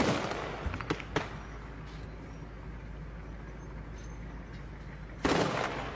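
Gunfire in a night firefight: a loud shot at the start that rings off, two fainter cracks about a second later, then a steady hiss and another loud shot or short burst near the end.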